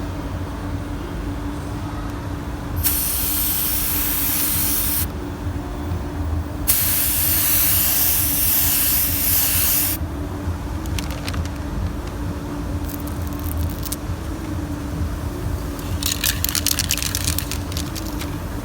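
Paint spray gun hissing in two long passes, about two and three seconds long, then a run of short spurts of air near the end. Under it all runs a steady machine hum with one low steady tone.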